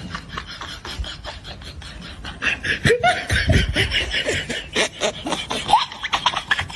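A person laughing, starting about two and a half seconds in and carrying on in bursts, over a steady run of quick clicks and crackles.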